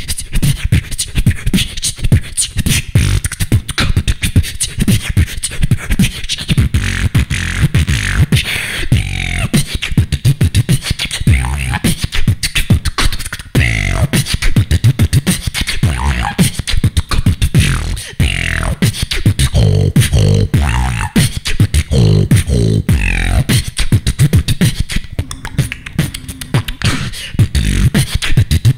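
Solo female beatboxing into a handheld microphone: a dense, fast run of mouth-made kick drums, snares and hi-hat clicks over deep bass hits. Sliding pitched vocal sounds are woven in through the middle stretch.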